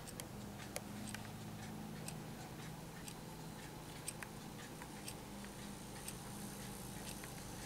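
Clock ticking faintly, about once a second, over a steady low hum.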